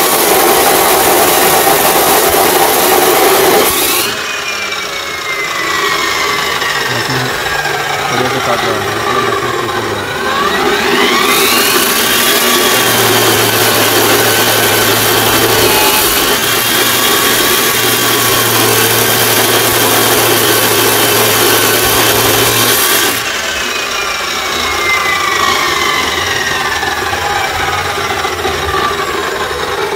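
14-inch abrasive cut-off machine (chop saw) cutting through iron: a loud grinding hiss from the wheel biting the steel, in two cuts, one at the start and a longer one from about 11 s to 23 s. After each cut the motor's whine falls away as it winds down, and the motor spins up again just before the second cut. The repairer judges it to be cutting smoothly, without the wheel vibration it had before the spindle repair.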